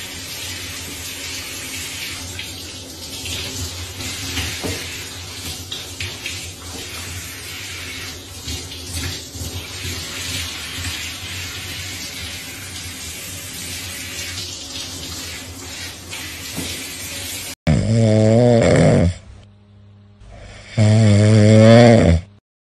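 Handheld shower sprayer running water over a wet cat, a steady rush of water. After an abrupt cut, a sleeping cat snores loudly twice, each snore about a second and a half long with a wavering pitch.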